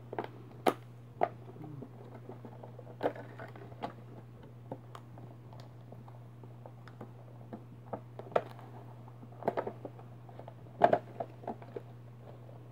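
Plastic blister packaging of a boxed toy crinkling and clicking as small hands pull at it, in scattered taps and crackles, over a steady low hum.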